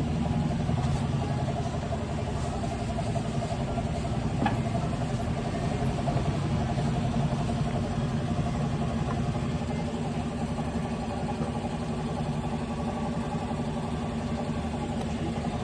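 Motor scooter engine idling steadily, with one light click about four and a half seconds in.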